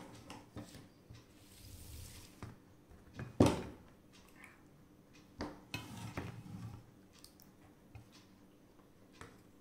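Serving food at the table: a steel ladle scooping and pouring dal, with dripping and splashes of liquid and scattered clinks and knocks of utensils against dishes. One sharp clink about three and a half seconds in is the loudest.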